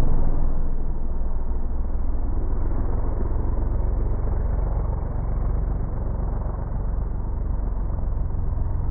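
Can-Am Maverick X3 side-by-side's three-cylinder engine running as it drives away, easing off a little in the first second and then holding a steady rumble.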